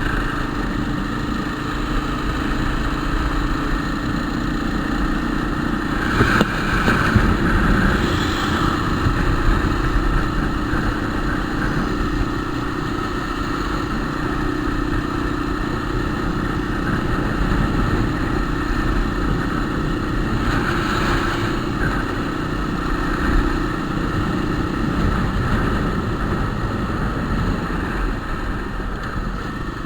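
Motorcycle engine running steadily under way, with louder swells of noise about six to nine seconds in and again around twenty-one seconds; the engine's steady note drops away near the end.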